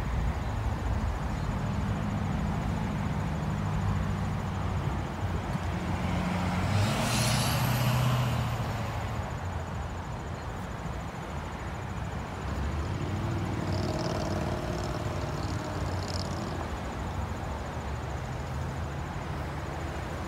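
Heavy highway traffic: a steady mix of car and truck engines and tyre noise as vehicles stream past, with one vehicle passing louder about seven seconds in.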